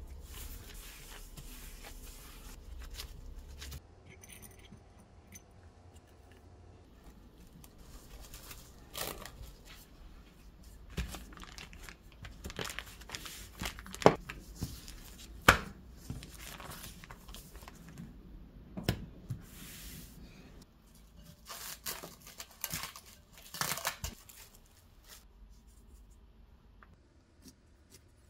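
A stainless steel rolling pin pounding a block of butter in a plastic bag on the counter to make it pliable, with two loud sharp hits midway and lighter knocks around them. The plastic bag crinkles and rustles as it is handled.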